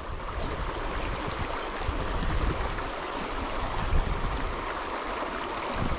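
Shallow river riffle flowing steadily around the wader, a constant rushing of water, with a low rumble of wind on the microphone.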